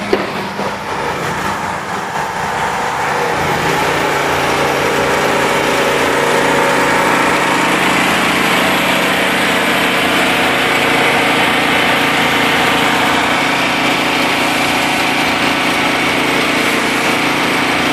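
Pressure-washer skid's 479cc Vanguard twin-cylinder gas engine running steadily, driving the belt-drive pump. It grows louder over the first few seconds, then holds an even drone.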